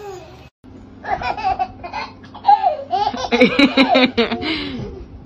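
A baby laughing: a few squealing sounds, then a run of quick belly laughs about three seconds in.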